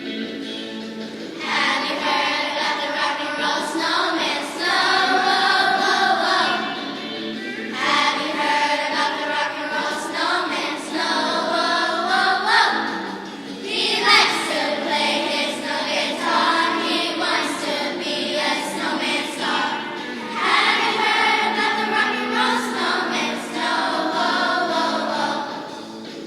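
Children's choir singing in phrases over a steady instrumental accompaniment.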